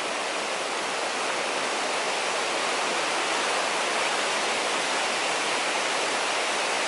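Mountain river rushing over rocks: a steady, even rush of white water.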